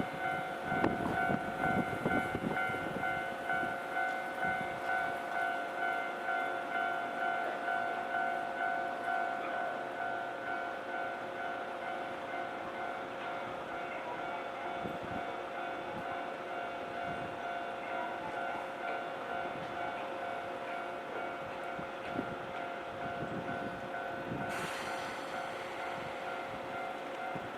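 Japanese level crossing alarm ringing, a repeated bell-like tone at about one and a half strikes a second, with low irregular knocks and rumble from a train beneath it. A hiss comes in near the end.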